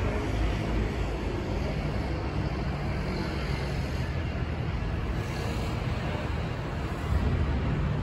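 City road traffic: a steady rumble of vehicles running and passing, with a faint hiss rising around the middle.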